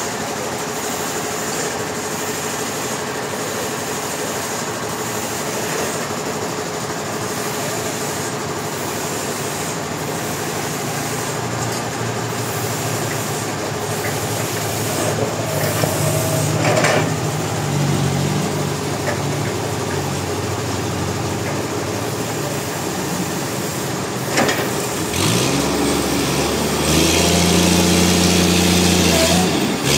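Sawmill machinery running steadily with a faint whine, with a couple of sharp knocks. Near the end an engine revs up and holds at a higher, louder pitch.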